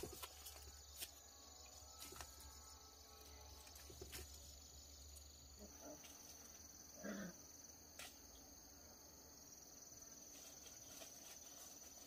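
Faint, steady high-pitched chirring of insects, with a few soft clicks scattered through it and one brief low sound about seven seconds in.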